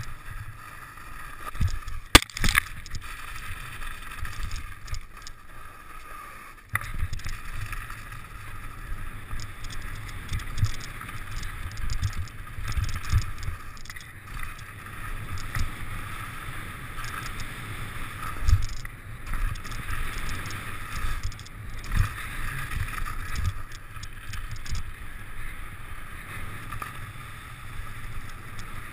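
Mountain bike rolling fast down a snow-covered trail, heard through a bike-mounted camera: steady wind rumble on the microphone with frequent bumps and jolts from the bike, and a sharp knock about two seconds in.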